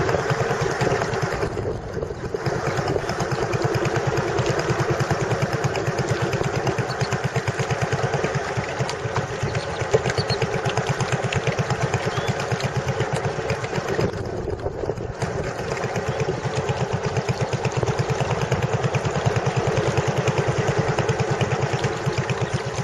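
A small boat engine running steadily with a fast, even pulse. It eases off briefly about two seconds in and again about fifteen seconds in.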